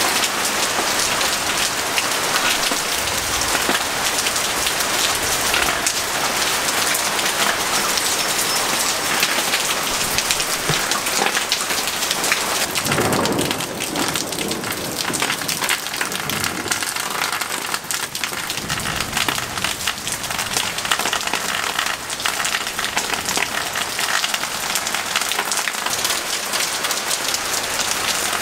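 Heavy rain pouring steadily onto paving and foliage in a summer thunderstorm, with a low rumble about halfway through.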